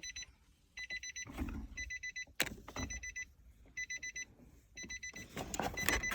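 Car's electronic warning chime beeping in quick pulses, in half-second bursts about once a second. Sharp clicks and knocks of plastic console trim being handled come between the bursts.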